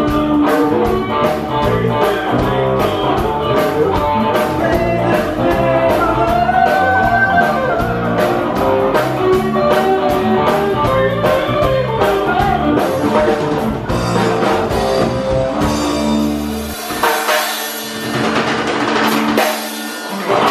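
Band music: a drum kit keeping a steady beat under guitar and a singing voice. Near the end the drums drop out and a held note carries on.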